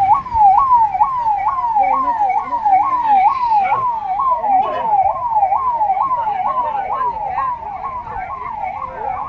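Emergency vehicle siren sounding a fast wail, its pitch sweeping up and down about two and a half times a second, loud and continuous.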